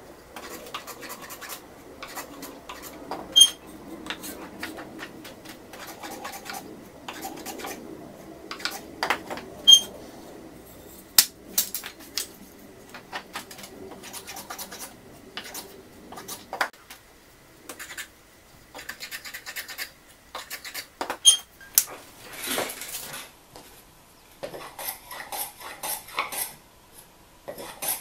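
A small wooden-bodied hand plane being handled and set: wood knocking and scraping on wood, with a few sharp metallic taps that ring. Near the end comes a run of short, quick planing strokes on a narrow wooden strip.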